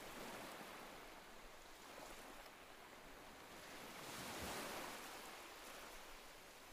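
Surf on a sandy beach: a faint, even wash of waves that swells to a louder surge about four and a half seconds in, then eases back.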